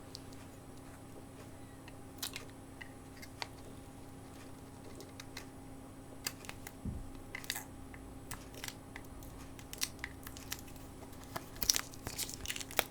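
Scattered small clicks and scrapes of tools and parts being handled while a smartphone is taken apart, coming more often near the end, over a faint steady hum.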